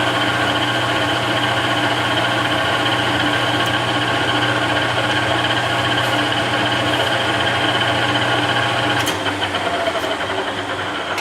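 Webb Whacheon WL435 gap-bed lathe running steadily with its spindle at speed, a whine of several steady tones over a low hum. About nine seconds in the pitch drops and the tones fade as the spindle brake is applied and the spindle spins down.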